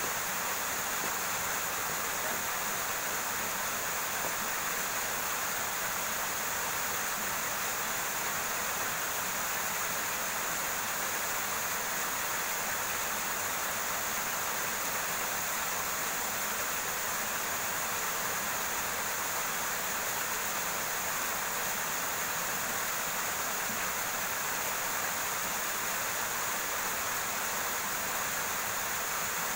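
River water rushing steadily over rocks, an even, unbroken hiss.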